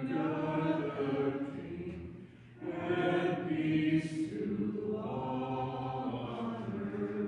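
Voices singing a hymn in slow, sustained phrases, with a short breath pause about two seconds in.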